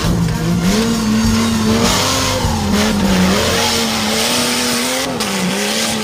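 Off-road buggy engine revving, its pitch rising and falling again and again as the vehicle slides through loose dirt, over a steady hiss of spinning tyres and flying dirt.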